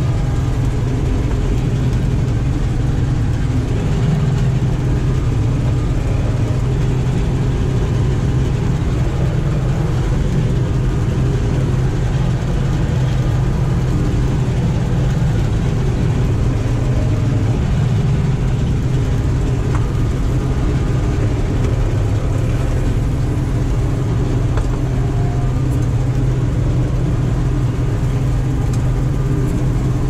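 Combine harvester running steadily while harvesting: a constant low engine drone with the threshing machinery's hum, even in pitch and level throughout.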